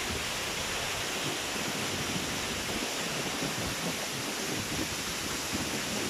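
Tall, narrow waterfall plunging into a pool: a steady rushing hiss of falling water.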